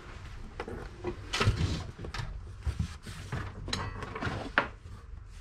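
Handling noises: irregular knocks, clicks and rustling as things are moved about on a workbench, with a sharp click about four and a half seconds in.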